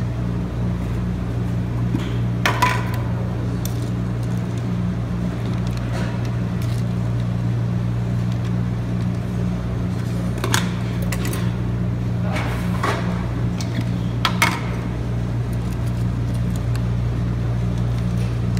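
Metal spatulas clinking and scraping on an ice-cream-roll cold plate several times, over a steady low machine hum.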